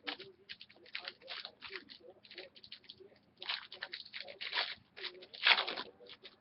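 Wrapper on a pack of trading cards being torn open and crinkled by hand: a quick run of short crackles, densest and loudest between about three and a half and six seconds in.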